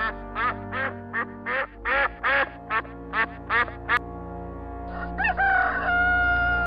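A mallard hen quacking in a quick run of about a dozen quacks, then a rooster crowing once, its call rising and then held long. Soft background music runs underneath.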